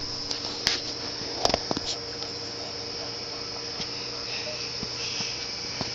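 Crickets chirring steadily under a low steady hum, with a few faint clicks in the first two seconds.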